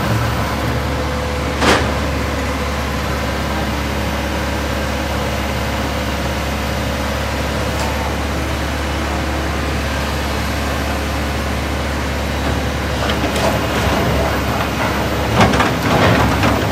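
Truck engine running steadily, with one sharp knock about two seconds in and busier, louder traffic noise near the end.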